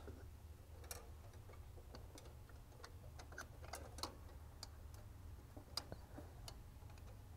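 Scattered faint, irregular clicks of small metal parts: a carburetor choke rod being spun onto the threaded end of the choke's bimetal coil and its end set against the adjuster hole, during choke adjustment. The clicks sit over near-silent room tone.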